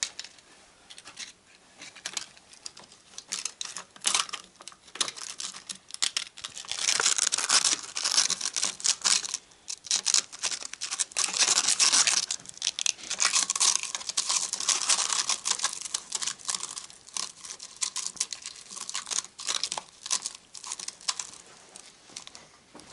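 Sandpaper rustling and crackling as it is handled and wrapped around a homemade cylinder-honing head. The noise comes in uneven spells and is densest through the middle.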